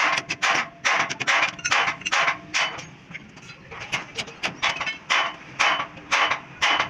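Hand hammer striking the steel leaf-spring hanger and shackle under a truck: a quick series of sharp metallic blows, with a short pause about three seconds in before the blows resume.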